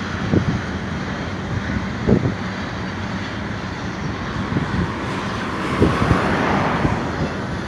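Intermodal freight train rolling past: a steady rumble of steel wheels on rail from trailer-carrying flatcars, with a few low thumps along the way.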